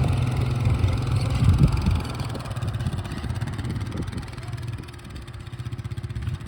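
A vehicle engine running, loudest for the first two seconds and then fading.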